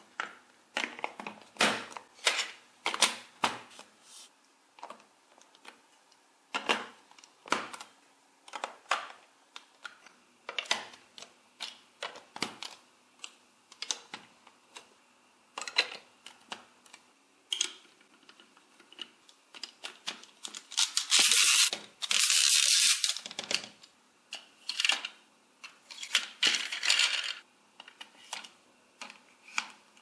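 Large plastic toy building bricks clicking, knocking and snapping together as they are handled and pressed onto each other, in irregular separate clicks. Near the two-thirds mark there is about two seconds of scraping plastic.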